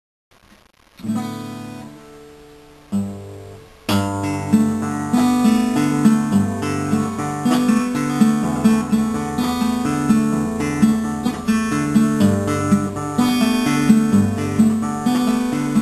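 Acoustic guitar played solo: a chord let ring about a second in and another just before three seconds, then steady rhythmic picking from about four seconds on.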